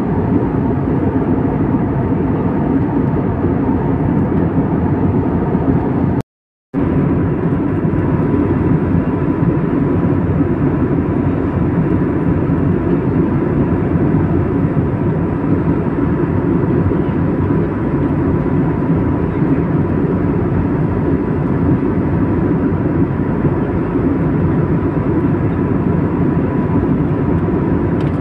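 Steady jet airliner cabin noise in cruise, the turbofan engines and airflow heard from inside the cabin as an even low rumble with a faint steady whine. The sound cuts out for about half a second around six seconds in.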